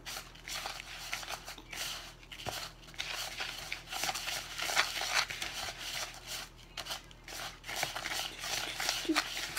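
Sugar, brown sugar and cinnamon being mixed by hand in a clear plastic bowl: irregular gritty rustling and scraping strokes.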